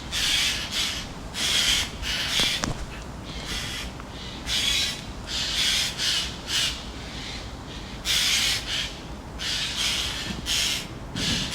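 Eurasian jay giving its harsh, rasping screech, repeated about a dozen times at irregular intervals.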